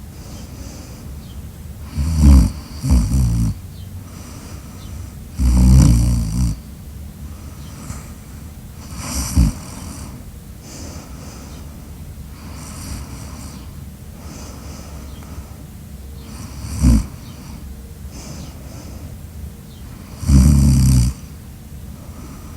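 Loud snoring, in irregular bouts a few seconds apart. There is a double snore about two seconds in, two longer ones, and two short, sharp snorts, with quieter breathing between them.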